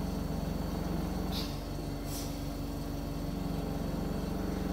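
Glassblowing bench torch burning steadily, a low even hum and rumble with a slight flutter. Two brief faint hisses come about a second and a half and two seconds in.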